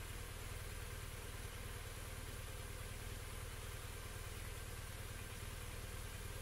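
A vehicle engine idling steadily: a low, even hum that holds constant without revving.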